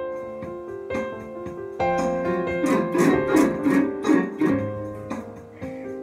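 Instrumental background music with held keyboard-like notes, and a busier run of quick notes in the middle.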